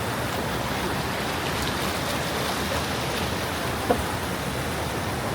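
Steady rush of falling water from a waterfall, with one short, sharp knock about four seconds in.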